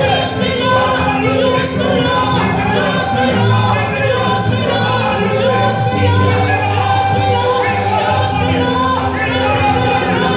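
Gospel worship music with voices singing over a band, its steady bass notes changing every couple of seconds.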